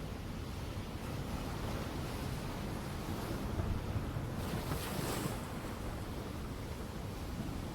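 Ocean surf: a steady low rumble of waves, with one wave breaking and hissing as it washes in about four to five seconds in.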